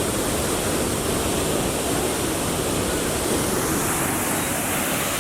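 Large waterfall pouring close by: a steady, unbroken rush of falling water.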